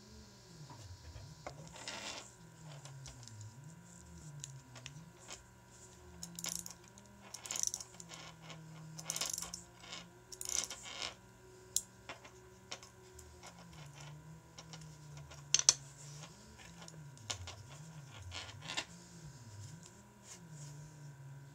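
A small metal keychain music box being handled and opened: scraping of its metal case and a series of sharp clicks, the loudest about halfway through.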